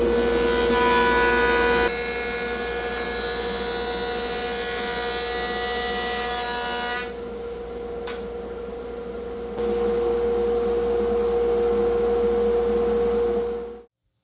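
6-inch Delta jointer and General 1 1/2 HP dust collector running together: a steady motor whine with one strong tone, its loudness shifting a few times, cutting off near the end.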